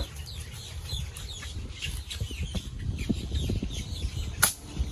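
Birds chirping repeatedly in the background. About four and a half seconds in comes one sharp crack, a shot from a 5.5 mm (.22) pellet air rifle.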